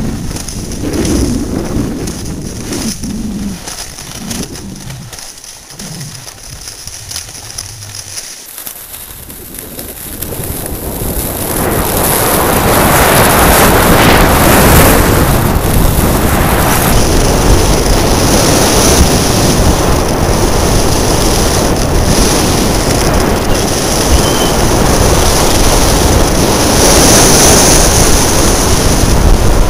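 Wind rushing over a helmet-mounted camera's microphone, mixed with skis running on groomed snow during a downhill run; it grows much louder about eleven seconds in and stays loud.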